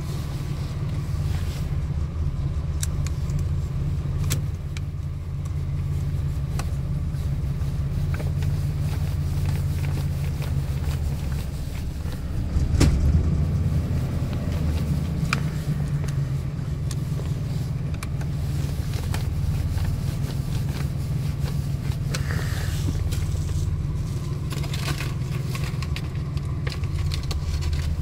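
1990 Chevy pickup's engine idling steadily, which the owner says runs a little rough with a miss, heard from inside the cab. Over it come small clicks and scrapes of screws going into the steering column's plastic switch block, with a louder knock about halfway through.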